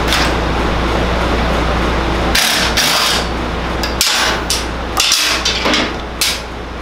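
Impact wrench running on the go-kart's engine mounting bolts to loosen them, in several runs with brief breaks and a few sharp clicks between them.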